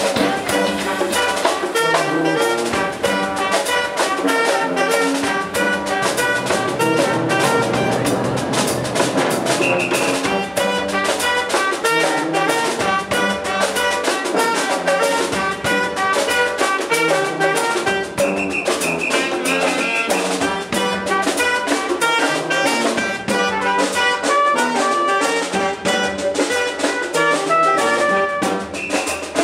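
Live brass band playing: trumpet, tuba, saxophone and trombone over a drum kit keeping a steady beat.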